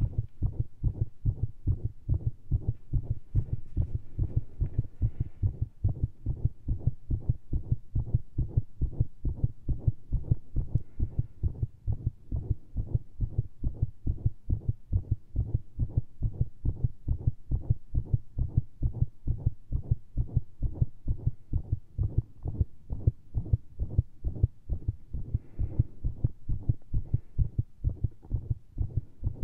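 Human heartbeat picked up through a stethoscope, beating fast with a dense run of low lub-dub thumps. The heart is recovering from a strain-and-hold pressure manoeuvre on top of heavy caffeine intake.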